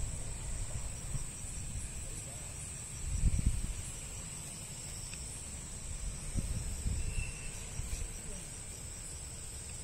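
Crickets trilling steadily in one high, continuous tone. Low rumbles on the microphone come near the start, about three seconds in, and again about six and a half seconds in.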